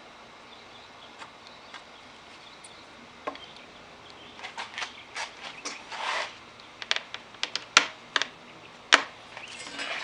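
Hand work on wood: a few faint taps, then from about halfway an irregular run of short rubbing or scraping strokes mixed with sharp clicks and knocks.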